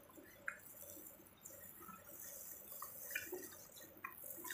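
Faint, scattered wet clicks and crinkles of plastic-gloved hands picking apart saucy shellfish from a seafood boil.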